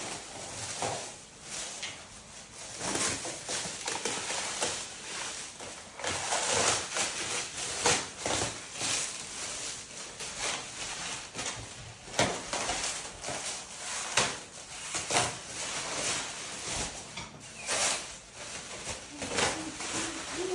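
Plastic stretch wrap being peeled and pulled off a large glass aquarium tank, crinkling and rustling in irregular bursts.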